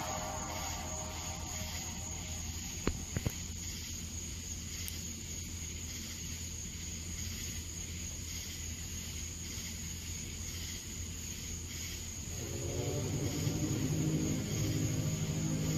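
A low, horn-like drone with several overtones starts about twelve seconds in and holds, over a steady low hum and a high steady whine. Three quick clicks sound about three seconds in.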